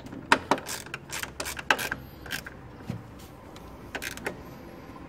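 Irregular sharp clicks and knocks of gloved hands handling plastic and metal fittings around an engine's throttle body, thickest in the first couple of seconds with two more about four seconds in.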